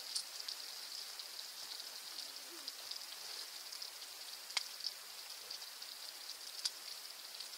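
Insects chirring steadily and high-pitched in summer woodland, with three sharp clicks: one at the start, one a little past halfway and one near the end.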